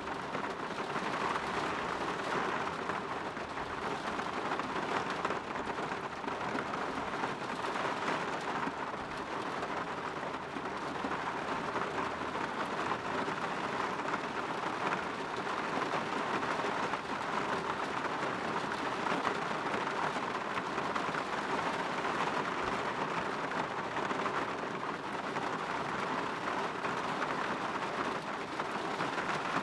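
Steady rain falling against a window, an even patter without pause.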